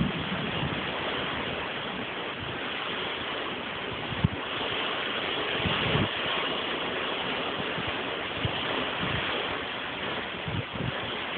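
Heavy rain pouring down in a thunderstorm, a steady hiss, with one sharp tap about four seconds in.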